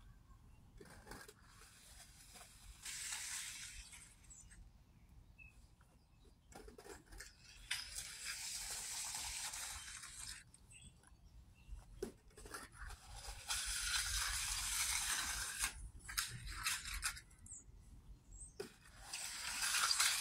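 Hand trowel scraping across a wet concrete surface while finishing a freshly poured slab, in about four long strokes of one to two and a half seconds each with pauses between.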